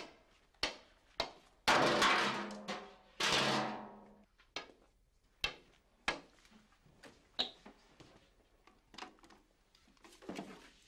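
A walking stick and footsteps tapping on a hard floor, about one tap every half second, with two louder rattling bangs about two and three seconds in, then scattered quiet clicks and knocks.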